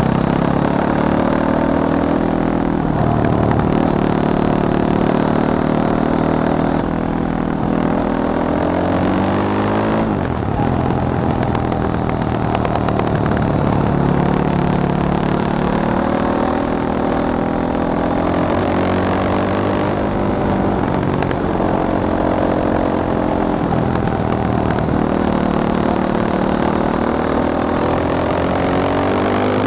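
Fantic Caballero 500 Flat Track's single-cylinder engine running under load, its pitch climbing in long sweeps and dropping back again and again as the throttle is opened and closed.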